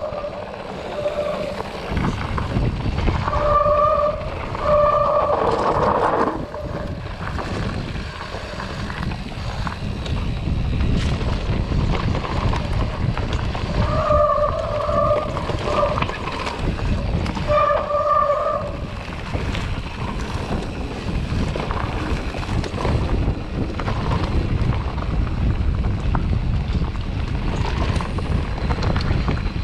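Mountain bike ride with wind buffeting the microphone and the bike rattling over rough trail. Several short, wavering squeals of the disc brakes come as the rider brakes.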